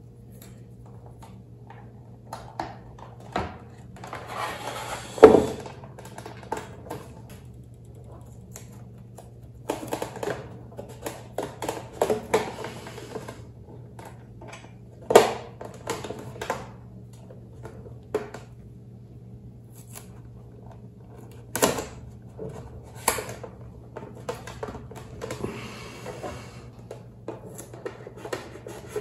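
Hands handling a large plastic model ship hull on a cutting mat: scattered light clicks, taps and short rustling scrapes of plastic and tape, the loudest a sharp knock about five seconds in, over a steady low hum.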